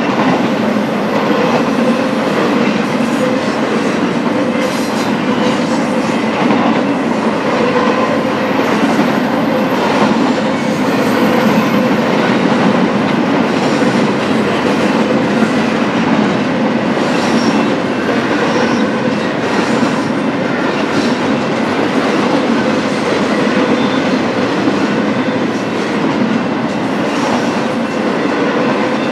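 BNSF intermodal freight train rolling past: a steady loud rumble of steel wheels on rail, with a faint high wheel squeal about ten seconds in.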